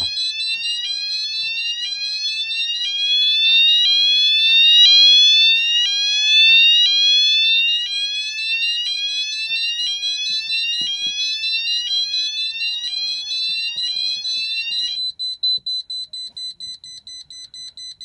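Notifier fire alarm sounder on an addressable fire alarm system sounding its fire tone, a rising sweep repeated about once a second and loudest a few seconds in. About fifteen seconds in the sweep stops as the sounders are silenced, leaving the control panel's internal buzzer beeping rapidly at a steady high pitch.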